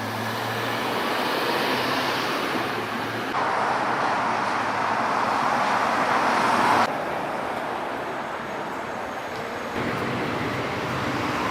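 Road traffic noise: cars passing on a street, an even rush of tyre and engine noise that jumps or drops sharply in level a few times.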